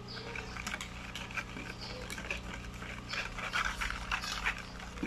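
Wire whisk beating eggs and sugar in a ceramic bowl: quick, uneven swishing strokes with the wires clicking against the bowl, over a steady low hum.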